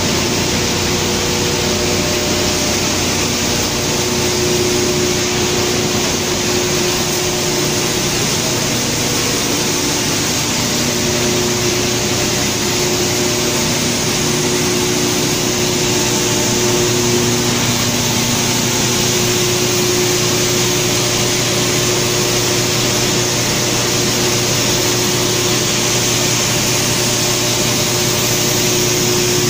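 ThoYu TY-1300-600 comprehensive wood pallet crushing machine running, a loud, steady whir with a few constant hum tones and no separate knocks.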